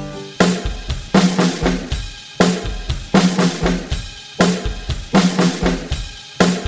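Background music: a drum kit playing a steady beat of kick and snare hits, coming in about half a second in.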